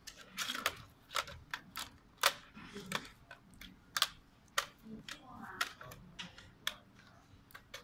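Plastic parts of a DPVR VR headset's housing clicking and knocking together as they are handled and fitted into place: an irregular run of sharp clicks and light taps, with soft rubbing of gloved hands on plastic between them.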